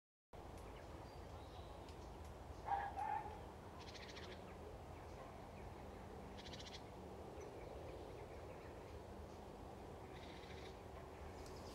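Faint outdoor ambience with a steady low background hiss and several bird calls: one short, louder call about three seconds in, and brief high, rapid rattling calls around four, six and a half and ten seconds in.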